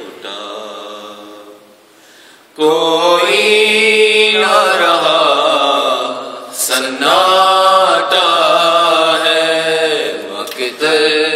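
Unaccompanied men's voices chanting an Urdu lament (noha) in long, drawn-out, wavering phrases. A quieter line fades away, then the voices come back in loudly about two and a half seconds in, with a short break about halfway through.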